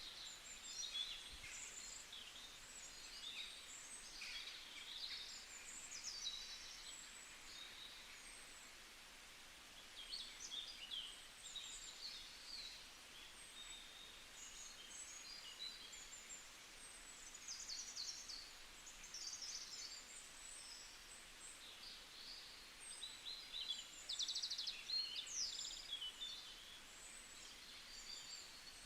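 Several small birds chirping and singing, many short high calls and trills overlapping, over a faint steady hiss.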